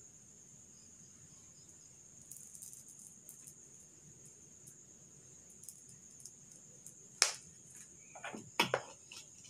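Crickets trilling steadily and high in the background. A few faint clicks come a couple of seconds in, then a sharp click about seven seconds in and a quick cluster of louder clicks and knocks near the end as the thin plastic water bottle is taken from the mouth and handled.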